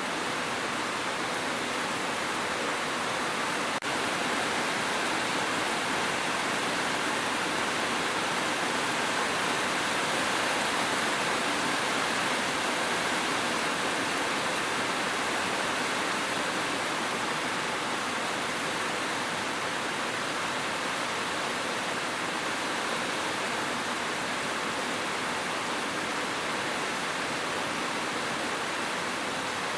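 Steady, even rush of falling water, heavy rain or a cascade, a dense hiss with no separate drops standing out, briefly dipping once about four seconds in.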